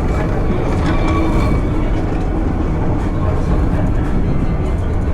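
Kintetsu Nishi-Shigi funicular car climbing its steep grade: a steady rumble of steel wheels running on the rails, with a faint thin whine in the first second or so.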